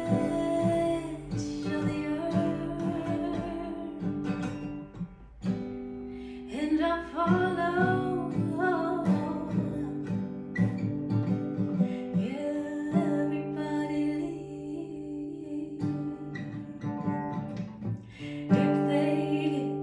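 Background music: acoustic guitar with singing, the voice clearest in the middle.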